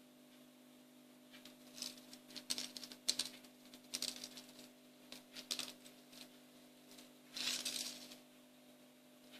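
Fidget spinner clicking and clattering as a cat paws at it: irregular sharp clicks and short rattles, with one longer rattle near the end.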